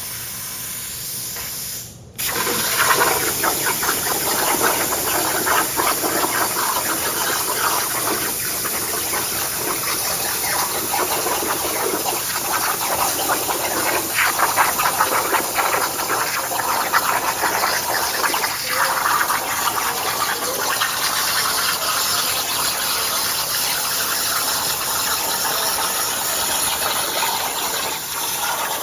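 CNC plasma torch cutting 1/8-inch steel plate: a steady, loud hissing rush of the cutting jet with fine crackle. It drops off briefly about two seconds in, then fires up again louder.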